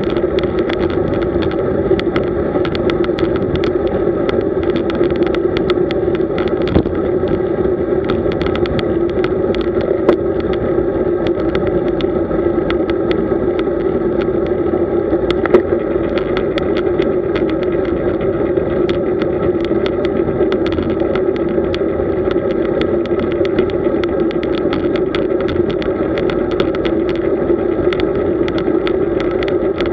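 Steady road noise from a bicycle riding along at an even pace: a constant hum with frequent small irregular clicks and rattles.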